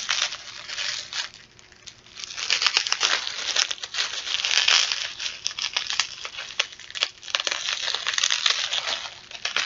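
Packaging crinkling and rustling as an item is unwrapped by hand, a dense crackle with many small snaps, dipping briefly about a second and a half in and then going on steadily.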